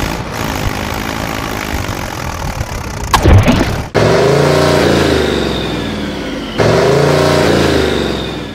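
Tractor engine sound effect laid over toy footage: an engine revving, its pitch rising and falling, with a loud short burst about three seconds in. The clip cuts off abruptly and restarts twice in the second half.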